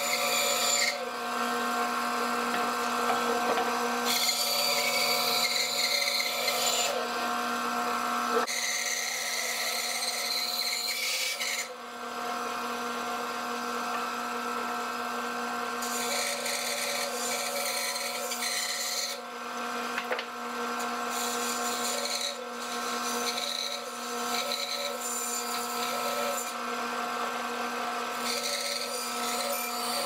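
Bandsaw running with a steady motor hum, its blade cutting a wooden board in stretches of a few seconds; the rasping cut stops and starts again several times as the piece is fed and turned along the outline.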